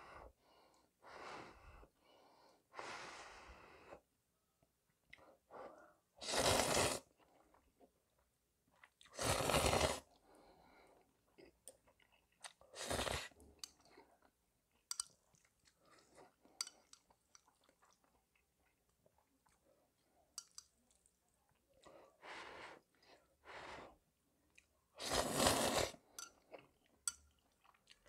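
A person slurping up mouthfuls of spicy instant fried noodles, several long slurps with chewing between them. There are a few small sharp clicks as well.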